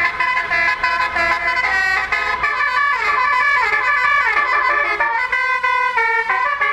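Indonesian bus 'telolet' musical air horn, a multi-trumpet basuri-type horn, playing a quick tune of changing notes with a falling slide of notes about midway.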